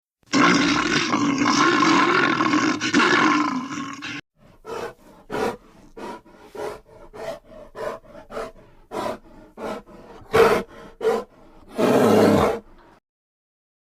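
Bear roar sound effect: one long roar of about four seconds, then a rapid string of short calls, two or three a second, and a last brief roar near the end.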